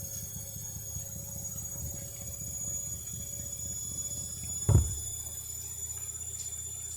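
Candy washing machine in its final high-speed spin: a steady low rumble with the drum shaking the machine. A single loud thump about two-thirds of the way through.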